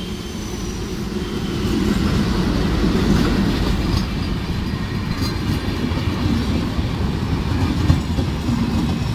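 Diesel-hauled intercity passenger train running through a station without stopping: a heavy low rumble of locomotive and rolling coaches on the rails, swelling about two seconds in as the train draws alongside and then holding steady, with a few faint wheel clicks.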